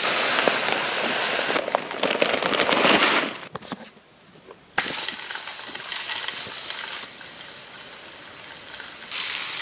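Granular fertilizer being broadcast by hand over a food plot, the pellets landing on dry ground and young plants as a crackling hiss of many small clicks. It is loudest for the first three seconds, dips briefly, then goes on more evenly. Crickets chirr steadily in the background.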